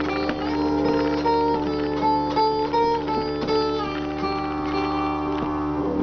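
Acoustic guitar playing a run of picked notes in a melody over a ringing held note.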